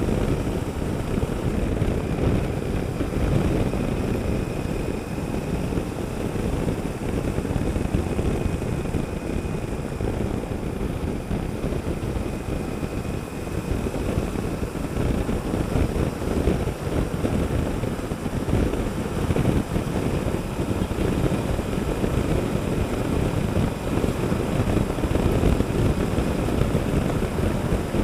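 Honda Africa Twin CRF1000L motorcycle being ridden: its parallel-twin engine running at a steady pace under a dense, low rumble of riding noise.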